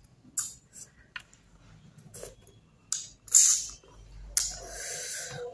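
Close-up mouth sounds of eating by hand: scattered wet chewing clicks and lip smacks, with a louder hissing slurp a little past three seconds in and a longer noisy one near the end.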